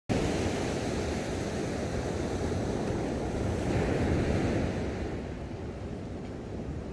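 Ocean surf breaking and washing up a sandy beach, a steady wash that swells about four seconds in and then eases off.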